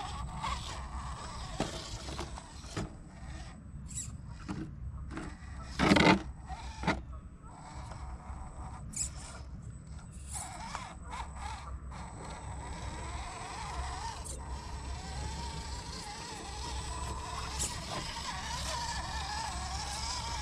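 Element RC Enduro12 1/12-scale crawler truck climbing rock: its electric motor and gearbox whine, rising and falling in pitch with the throttle, with scattered ticks and clicks of tires and chassis on stone. One short, loud squeal comes about six seconds in.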